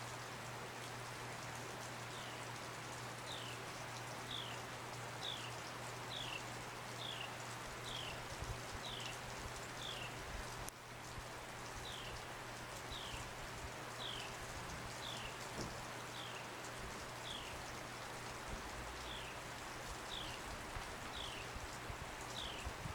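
Soft, steady patter and hiss of heavy snow falling, with a low steady hum beneath. A bird repeats a short, falling chirp about once a second through most of it.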